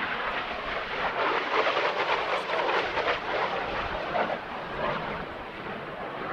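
Jet roar from Aermacchi MB-339 jet trainers' turbojets as the formation passes. It swells about a second in and eases off toward the end.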